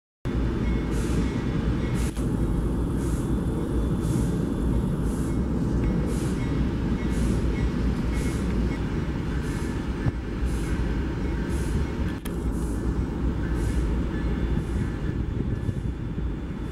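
Steady low rumble of diesel locomotives idling in a rail yard, with a faint high hiss repeating about twice a second.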